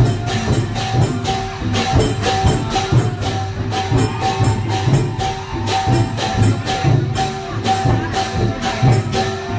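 Lively Thai procession music: drums and small cymbals keep a fast, steady beat under a sustained melody note.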